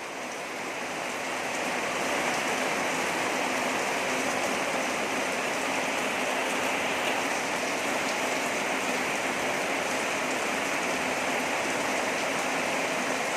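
Heavy rain falling steadily: a dense, even hiss that swells over the first couple of seconds and then holds.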